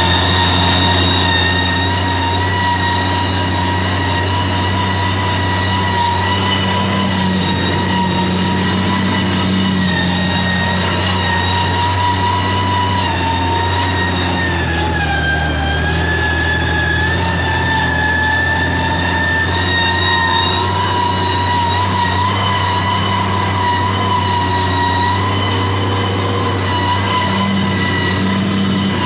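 Valtra 1780 tractor's diesel engine working hard under load while pulling a heavy 14-disc, 34-inch disc harrow, with a steady high whine over the engine note. Around the middle the whine sags briefly in pitch, then comes back up.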